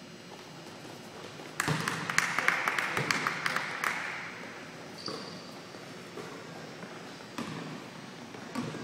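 Basketball play on a hardwood gym court: a basketball bouncing, with a busy stretch of sharp knocks and squeaks from about a second and a half to four seconds in, and a single short squeak about five seconds in.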